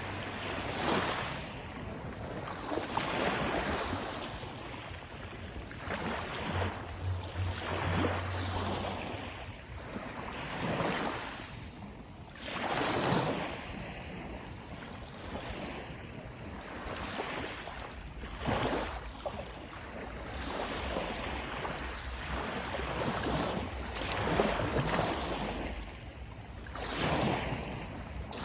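Sea waves washing and breaking in irregular surges every few seconds, with wind.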